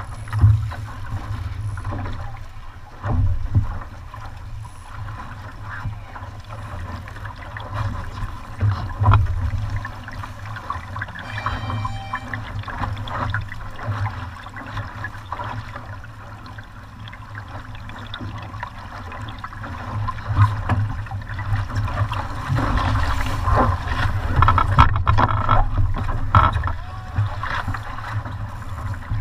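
Wind buffeting the microphone over water rushing and slapping against the hull of a VX One sportboat under sail in a chop. It comes in uneven gusts and splashes and grows louder from about twenty seconds in.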